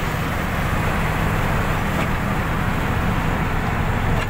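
Steady engine drone and road noise of a vehicle travelling along an expressway, heard from inside the vehicle.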